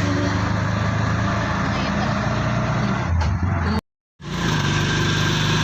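A motor vehicle's engine running steadily with a low hum while riding along. The sound cuts out completely for a moment a little under four seconds in, then comes back at a slightly different pitch.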